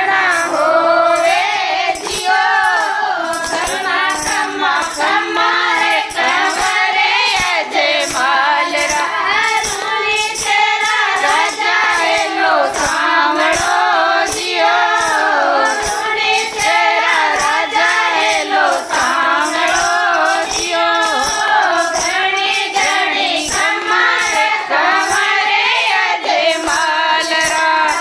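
A group of women singing a Marwari devotional bhajan together, with hand claps and a jingling percussion keeping a steady beat.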